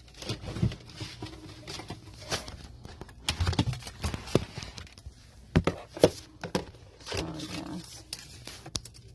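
Pantry items and containers being handled and moved around: a string of irregular knocks and clatters with rustling in between.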